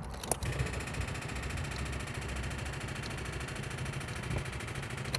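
A click as the key is turned, then a steady rapid electrical chattering buzz from the 2000 Volkswagen Jetta's starting circuit while the engine does not crank. It stops with a click at the end. The owner wonders whether this means a bad starter or a bad connection.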